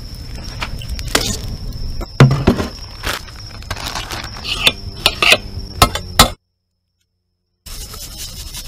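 Irregular clinks and clatter of a metal bowl and cooking utensils being handled, with plastic bag rustling, over a steady high-pitched background tone. The sound drops out to dead silence for about a second near the end, then the background returns.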